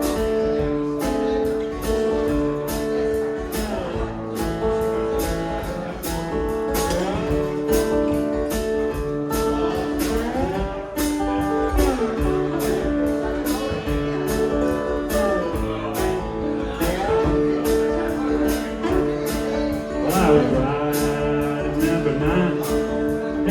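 Slide guitar playing gliding lines over a strummed acoustic rhythm guitar, with steady strums about twice a second, in a country tune.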